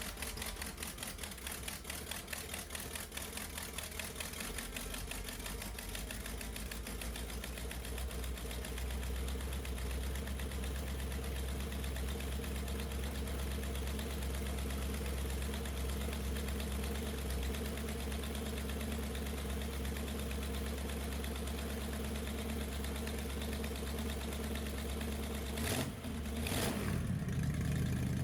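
Rebuilt small-block Chevy V8 running steadily on its first start after a rebuild with a new distributor, with a fast, even firing pulse. Near the end there is a brief break with two sharp bangs, and then the engine note rises and gets louder.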